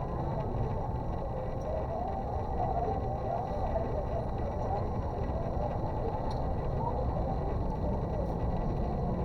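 Steady low background rumble with faint, indistinct voices.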